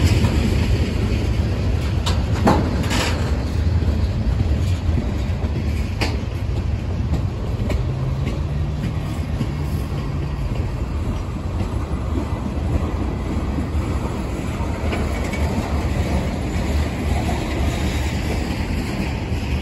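Freight train tank cars rolling past close by: a steady rumble of steel wheels on rail, with a few sharp clicks about two to three seconds in and again around six seconds.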